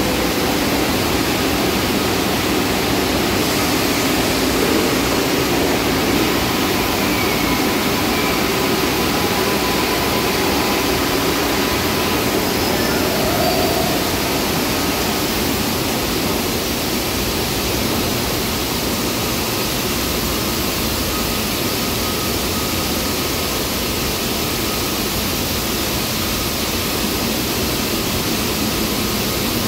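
Steady noise of a New York subway platform with an R142-type train standing at it, doors open: a constant wash of ventilation and equipment hum with a faint steady tone, and no distinct clanks or chimes.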